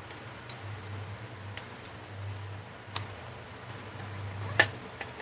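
Two sharp clicks of the hard plastic parts of a DVD player's disc loader being handled and fitted into the chassis, a small one about three seconds in and a louder one near the end.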